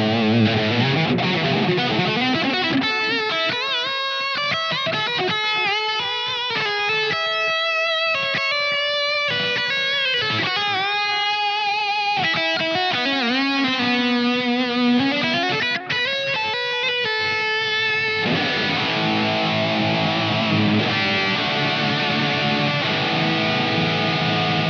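SQOE SEIB400 electric guitar played with distortion. It opens with chords, moves to a lead of single notes with bends and vibrato from about three seconds in, and goes back to full chords about eighteen seconds in.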